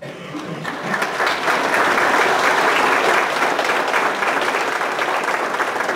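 Audience applauding, starting abruptly and building over the first two seconds, then easing slightly near the end.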